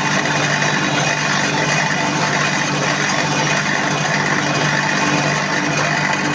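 Manual lathe running steadily, a constant machine hum with a few steady tones and no breaks.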